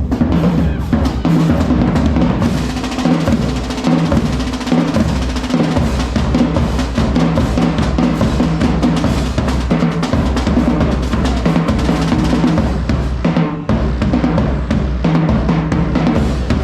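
Live music driven by a drum kit, with fast snare and bass drum strokes and rolls over a low bass line.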